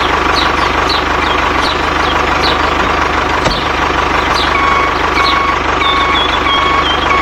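A vehicle engine running steadily. About halfway through, a reversing beeper starts, beeping about twice a second.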